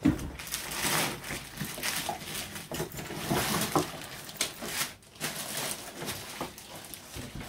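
Plastic wrapping on a rack server rustling and crinkling as the server is lifted out of its cardboard box and foam packing, with small knocks from handling.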